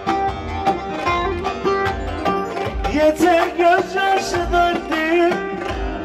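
Live Ankara oyun havası dance music: a fast, plucked bağlama melody over a pounding drum beat, with a sustained, wavering lead line joining about three seconds in.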